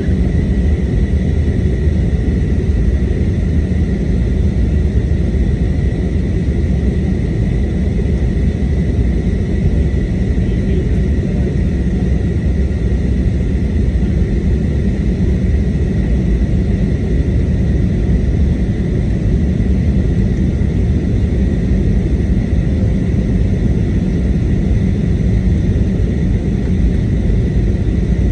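Airbus A321neo cabin noise in flight: a steady, loud low rumble of engines and rushing air, with a faint steady high whine running through it.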